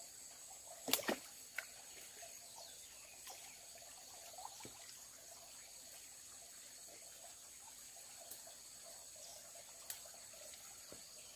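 Faint splashing and trickling of a shallow muddy stream as hands grope among the stones in the water. There are a few sharp knocks about a second in and another near the end, over a steady high-pitched drone.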